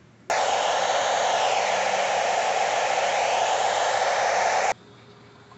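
Loud TV-static hiss from a screen showing snow, switching on abruptly and cutting off sharply after about four and a half seconds.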